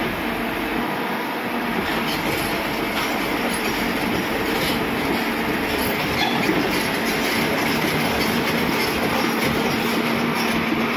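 Hyundai 140LC-9 crawler excavator running, a steady diesel engine and hydraulic noise with a low hum under it and some metallic rattle and squeal.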